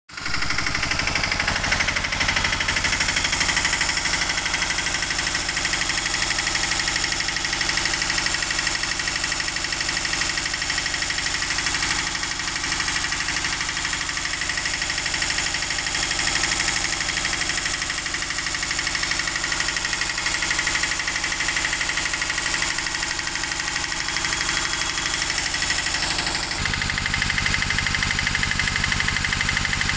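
Piaggio Ape three-wheeler's diesel engine idling steadily with a fast, even knocking beat. Near the end it sounds deeper and heavier, heard right at the exhaust tailpipe.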